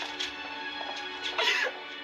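Sustained, sad background music from a TV drama, heard through computer speakers, with a girl's tearful sob breaking in about one and a half seconds in.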